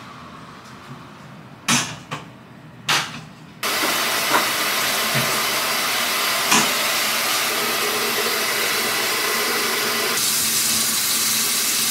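A door shuts with a couple of knocks, then a shower is turned on suddenly a little under four seconds in and runs with a steady hiss of spray.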